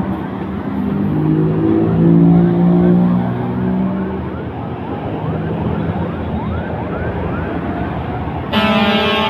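Heavy tractor-trailer truck's diesel engine pulling past in traffic, its pitch rising over the first few seconds, with a run of short rising chirps through the middle. Near the end a loud horn blast sounds for under a second.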